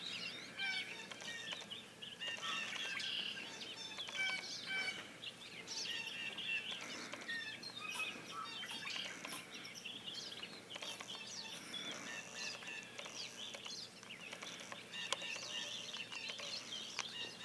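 Songbirds chirping and calling: many short, high chirps, overlapping one another, over a faint outdoor hiss.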